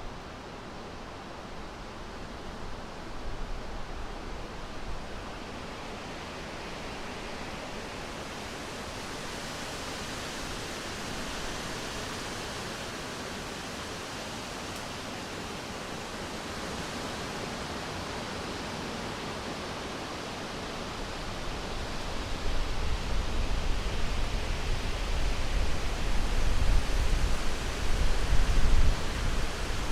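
Summer wind blowing through forest foliage: a steady rushing hiss that swells and eases. It strengthens into louder gusts with a low rumble in the last third.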